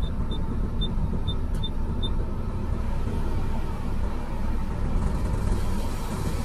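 Komatsu PC210 excavator's diesel engine running steadily, heard from inside the operator's cab, with about six short high beeps in the first two seconds. A hiss grows over the last second or so.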